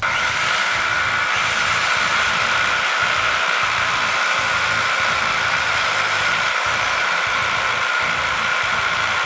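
Corded 800-watt rotary hammers drilling into concrete with 16 mm masonry bits in hammer-drill mode: a steady, loud hammering rattle over the motor's whine, with no let-up.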